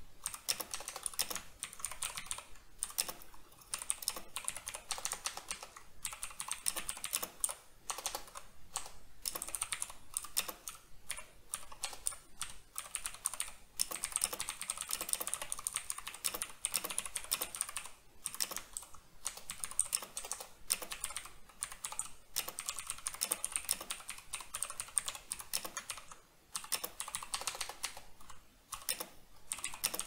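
Continuous typing on a Razer BlackWidow V3 mechanical keyboard with Razer Green clicky switches: a rapid stream of sharp key clicks, broken by a few short pauses.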